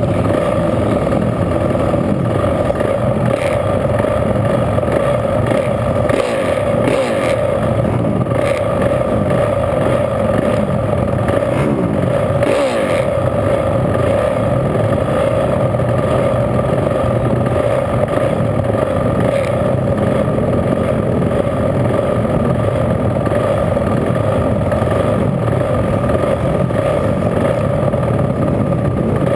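Honda CRF450 flat-track motorcycle's single-cylinder four-stroke engine idling steadily, heard through a helmet-mounted camera.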